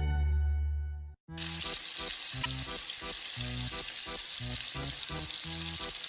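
A brass fanfare ends about a second in. Then a steady frying sizzle of a cooking pot starts, with light background music under it.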